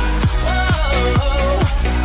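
Electronic dance music with a steady beat about twice a second and a melody that slides up and down in pitch.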